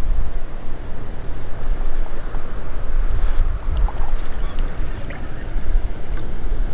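Low, uneven rumble of wind buffeting the microphone over rushing river water while a smallmouth bass is played on the line. From about three seconds in come a run of short sharp ticks and splashes.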